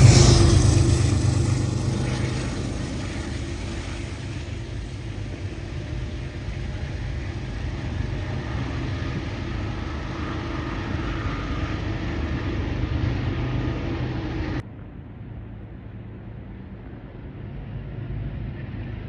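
A train rumbling past and fading away over a few seconds, leaving a steady low rumble. About fifteen seconds in, this cuts off abruptly to a quieter background rumble that grows louder again near the end.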